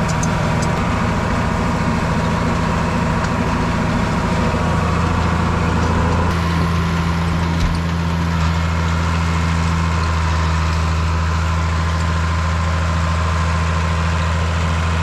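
Tractor diesel engine running steadily, heard from inside the cab. Its note shifts slightly about five seconds in.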